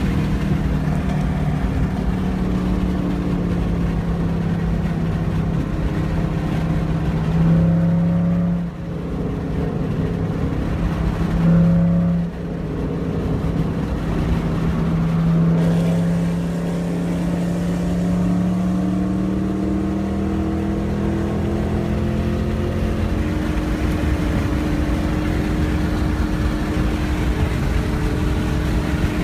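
Ford Mustang V8 exhaust rumbling at low revs, blipped twice with short revs that cut off sharply about eight and twelve seconds in, then the engine note climbing slowly and steadily through the second half as the car pulls away.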